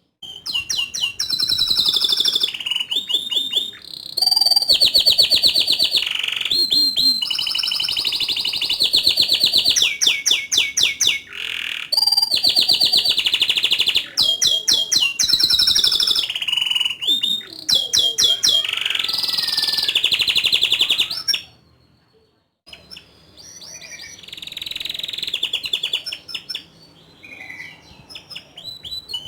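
Domestic canary singing long, continuous phrases of fast trills and rolls. The song stops for about a second a little past the middle, then resumes more softly.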